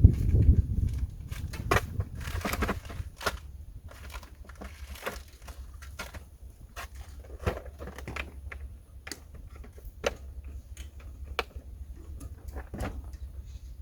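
Scattered light clicks and rustling from small parts and a bag being handled, with a low rumble in the first second or so.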